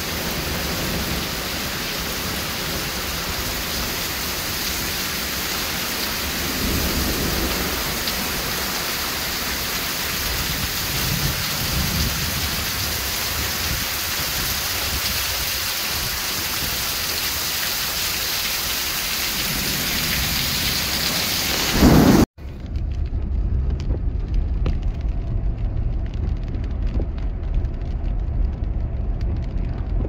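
Heavy rain pouring down, with thunder rumbling several times and a loud thunderclap about two-thirds of the way through. The sound then cuts suddenly to the low, steady rumble of a car driving on a wet road, heard from inside the car.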